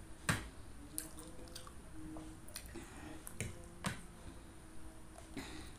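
Close-miked chewing of a mouthful of instant noodles with the mouth closed: soft wet squishing with scattered sharp clicks, the loudest about a third of a second in.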